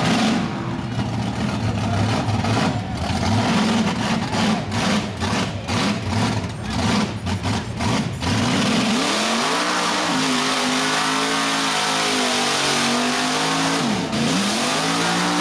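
Big lifted Chevrolet mud truck's engine revving hard as the truck works through a mud pit. For the first eight seconds the sound is choppy, cutting in and out rapidly; then it runs as a steady high-revving note whose pitch swings up and down, dipping sharply once near the end.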